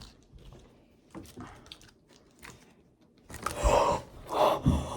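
A few faint soft clicks from cards being handled, then about three seconds in a person gasps loudly and breathes hard in excitement at a big card pull.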